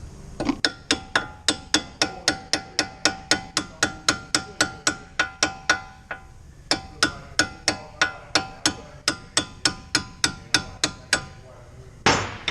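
A hammer striking steel in a fast, even run, about three to four blows a second, each with a metallic ring, knocking loosened suspension bolts out of a Ford Escape's front steering knuckle. The blows break off briefly about six seconds in, then resume, and one louder, longer knock or clatter comes near the end.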